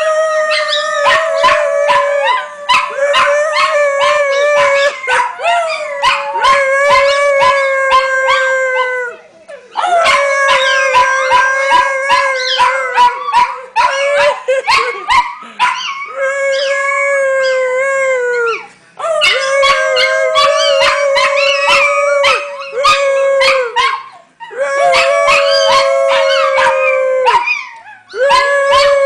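Several Chihuahuas howling together in long, held, wavering howls at slightly different pitches, with short sharp yips cutting in. The chorus breaks off briefly every few seconds and starts up again.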